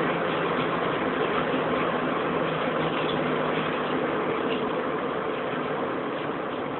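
Supercharged BMW 318ti Compact's four-cylinder engine running at a steady high-speed cruise, heard from inside the cabin under heavy wind and tyre noise. The sound is thin and muffled, as through a phone microphone, and fades slightly toward the end.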